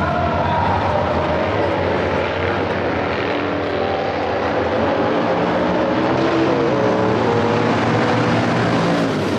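Big motorcycle engines running together in a loud, steady drone, with pitches that waver slightly.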